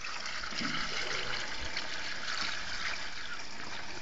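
Diesel fuel pouring in a steady stream from a metal tin through a plastic funnel into a fuel tank.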